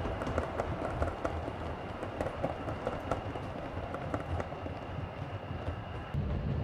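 7mm-scale (O gauge) model train running over the layout's track: a steady running rumble with frequent small clicks of wheels over rail joints and pointwork. Shortly before the end the sound turns suddenly louder and deeper.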